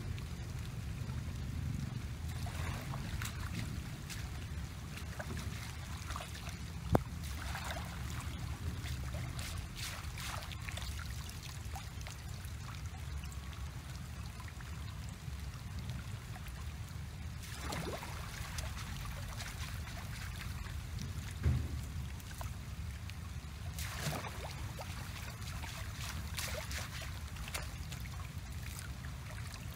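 Shallow muddy ditch water splashing and sloshing every few seconds as a person wades and scoops with a woven bamboo basket, over a steady low rumble. A single sharp click about seven seconds in.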